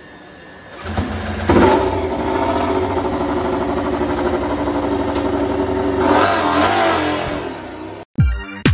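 Repsol Honda RC213V MotoGP bike's V4 engine firing up about a second in and running at steady revs, with the revs rising and falling near the end. It cuts off suddenly into electronic music with a heavy beat.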